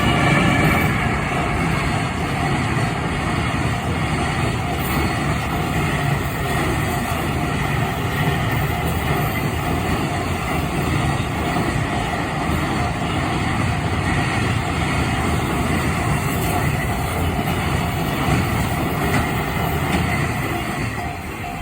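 EF210 electric locomotive and its container freight train running fast past a level crossing: a loud, steady rumble of wagon wheels on the rails, loudest right at the start. The crossing's warning bell rings on underneath.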